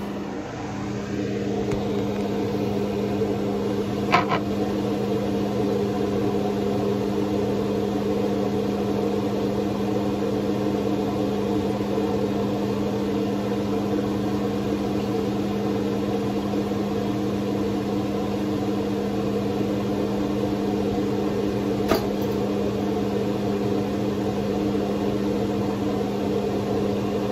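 A kitchen appliance's motor humming steadily on one low pitch, with two brief clicks about four seconds in and again near the end.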